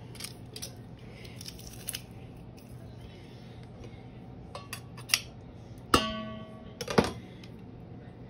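Metal garlic press clicking as garlic cloves are squeezed, then knocked twice against a stainless steel mixing bowl about six and seven seconds in, the first knock leaving the bowl ringing.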